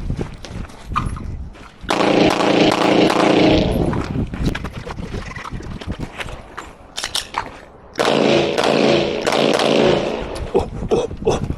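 Gunfire on a shooting range: a long burst of rapid automatic fire about two seconds in, scattered single shots, then a second, longer burst from about eight seconds.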